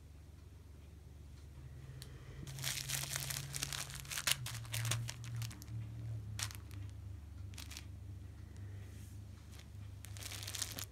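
Scratchy fabric rustling in irregular bursts as a cat claws, kicks and rolls against a catnip-filled cloth roll on a microfiber couch. The scratching is busiest from about two seconds in to the middle, with a couple of short scrapes after and another flurry near the end.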